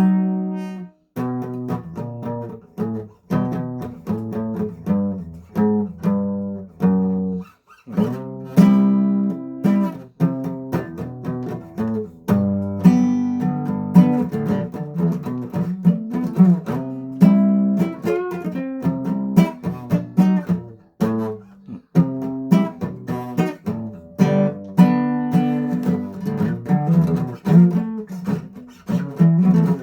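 Guitar being played, plucked notes and chords in a steady run, with short breaks about a second in and just before eight seconds.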